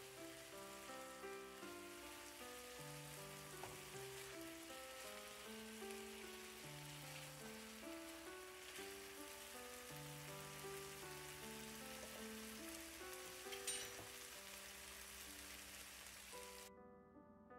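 Chicken wings sizzling in sauce in a frying pan, a steady faint hiss, over soft background music of piano-like notes. A single sharp click comes about three-quarters through, and the sizzle cuts off suddenly near the end.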